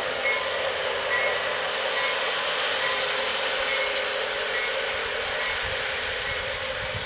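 Lionel LionChief RS-3 model diesel locomotive running on the garden track, with a steady, even running noise. A faint short tone repeats about once a second throughout.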